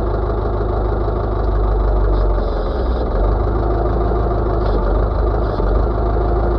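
Backhoe's diesel engine running steadily, growing a little louder for stretches as it works the hydraulics to push a sharpened locust post into the ground.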